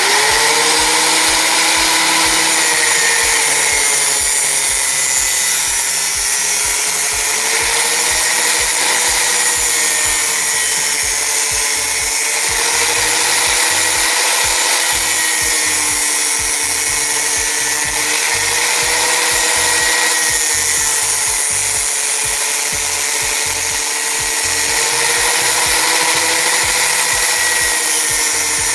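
Angle grinder mounted in a cutting stand, running and cutting through metal: a loud, continuous high motor whine with a gritty grinding hiss, its pitch wavering slightly throughout.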